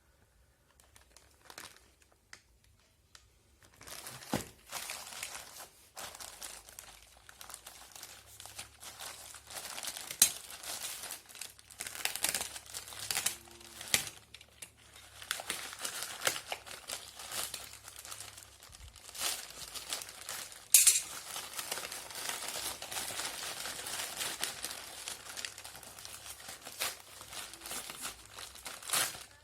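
Phone packaging being unwrapped by hand, crinkling and tearing almost continuously after the first few seconds, with scattered sharp snaps.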